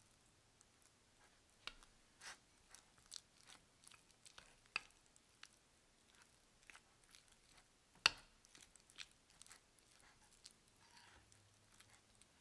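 Metal spoon stirring jam into oatmeal in a ceramic bowl: faint, scattered scrapes and clicks, with one sharper clink of the spoon on the bowl about eight seconds in.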